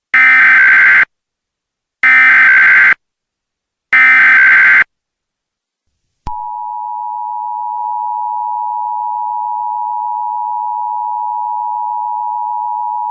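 Emergency Alert System tones. First come three one-second bursts of the screechy digital SAME header, about two seconds apart. After a short gap, the steady two-tone EAS attention signal begins and keeps sounding.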